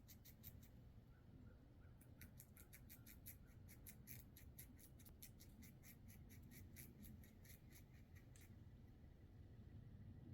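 Squirrel gnawing and scraping at the thick shell of a black walnut with its teeth: a fast, faint rasping of about five strokes a second. It breaks off briefly after the first half second, resumes about two seconds in, and stops about eight and a half seconds in.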